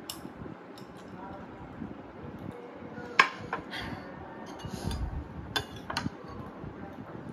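Glass and tableware clinks: a drinking glass set down on the table with a sharp clink about three seconds in, then a metal spoon clinking against a glass serving bowl. Faint background noise from a neighbourhood event underneath.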